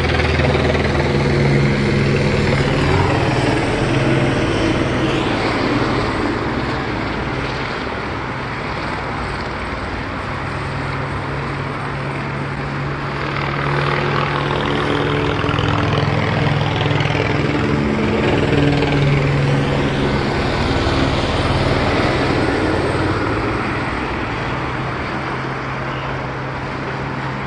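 Police helicopter hovering overhead, its rotor and engine making a steady low chopping drone that swells and fades twice.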